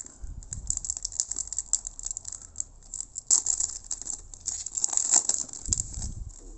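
Foil trading-card pack wrapper crinkling as it is torn open and the cards are slid out, a run of quick crackles with louder flurries about three seconds in and again around five seconds. A few soft handling bumps near the end.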